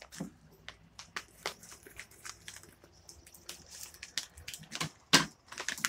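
Plastic MRE ration pouch crinkling and crackling as it is handled, a run of irregular sharp clicks with one louder crackle about five seconds in.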